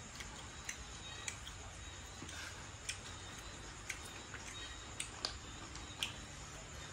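Faint, irregular small clicks of grilled snail shells knocking together and against the plate as they are handled and picked at, over a low steady room hum.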